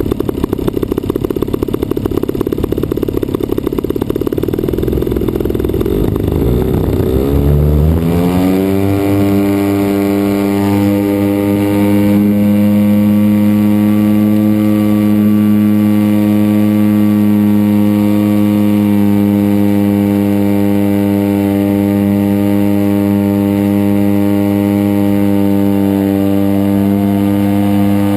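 DLE 55cc single-cylinder two-stroke petrol engine of a large radio-controlled Cessna 182 model, running low and rough at first, then revving up about eight seconds in and holding a steady high pitch.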